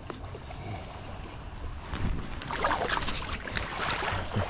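Shallow creek water swishing around the legs of a wading angler, turning into louder splashing from about two seconds in as he moves in the water.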